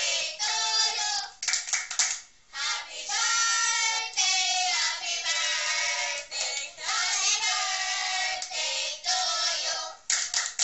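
High-pitched voices singing a song in held phrases, with hand claps between the phrases about one and a half seconds in and again near the end.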